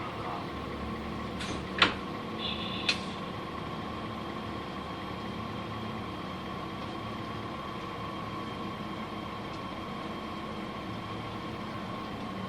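Nissan Diesel UA bus's PU6 natural-gas engine idling steadily, heard from inside the cabin. A sharp click comes about two seconds in and another a second later, with a brief high tone between them.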